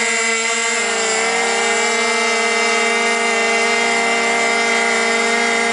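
Small model airplane engine running steadily at high revs, a high-pitched buzz.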